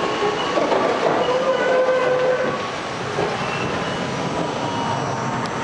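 R42 subway car running through the tunnel, heard from inside the car: a steady rumble of wheels on rail, with thin squealing tones from the wheels coming and going.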